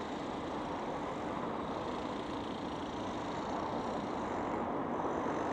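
Steady outdoor background noise, an even low rush like distant road traffic, with no distinct events.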